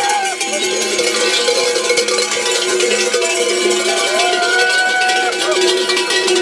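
Many cowbells and bells worn by a troupe of dancing carnival jesters, jangling and clanging together in a dense, continuous din. A long held call rises over the bells about four seconds in.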